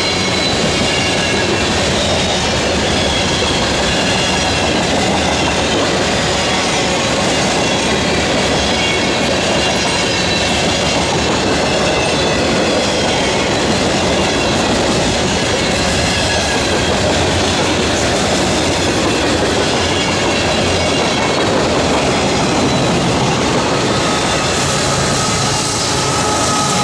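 Loaded freight cars rolling past at close range: steady clatter of steel wheels over the rail joints, with thin high wheel squeal now and then. Near the end a mid-train GE ES44AH diesel locomotive comes by, adding a low engine hum and a whine.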